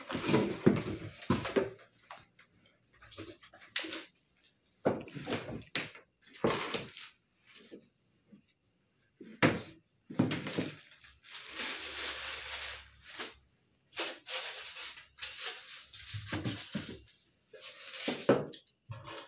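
Plastic wrapping rustling and crinkling in intermittent bursts as it is handled and pulled off a boxed welding machine, with a few sharp handling knocks from the unit and its cables.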